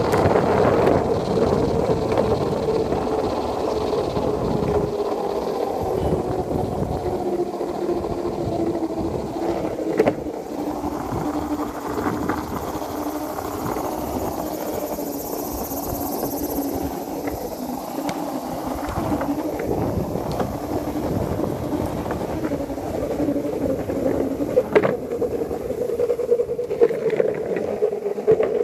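Skateboard wheels rolling on a concrete road: a steady rumble with a humming tone that slowly drops in pitch, then rises again near the end as the speed changes. Two sharp clicks, about ten seconds in and again near twenty-five seconds.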